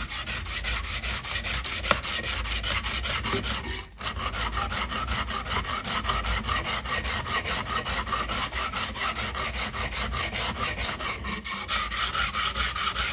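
A hand file rasping back a fresh weld on a steel car bumper, with regular strokes about two or three a second and a brief pause about four seconds in.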